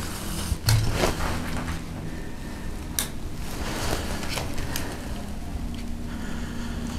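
Handling and movement noise: a low rumble with a few sharp clicks and knocks, the clearest about three seconds in.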